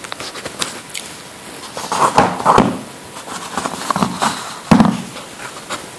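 Two metal multitools being handled: scattered clicks and knocks with short bursts of rustling, the sharpest knock about three-quarters of the way through.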